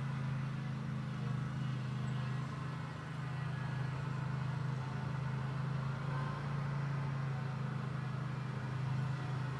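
Lawn mower engine running at a steady speed, an even low drone.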